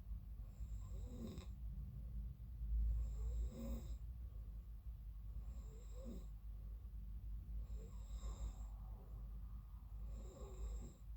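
A sleeping person snoring, five snores in a steady rhythm about two and a half seconds apart.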